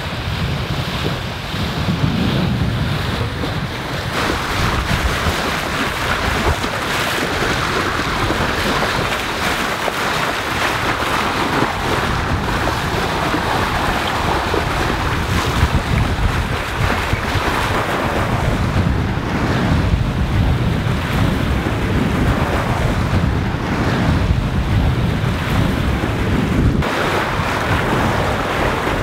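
Sea rushing and splashing along the hull of a yacht under sail, with wind buffeting the microphone; a steady wash that swells and eases with the waves.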